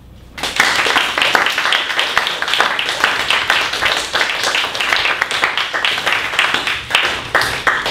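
Audience clapping, a dense patter of hand claps that starts sharply about half a second in.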